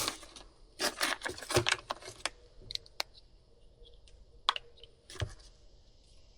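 Small sharp clicks and rattles of plastic parts and hand tools being handled while working on a leaf blower's primer bulb and fuel fittings: a quick flurry of clicks about a second in, then a few single clicks spaced out over the rest.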